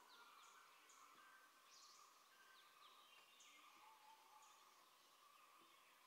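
Faint forest background: scattered short, high chirps and falling calls of small birds over a steady faint hum.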